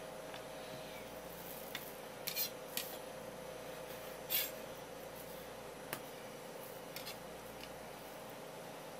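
Kitchen knife cutting and scraping through a raw fish fillet against a wooden cutting board: a handful of short, sharp scrapes, the loudest about halfway through, over a faint steady hum.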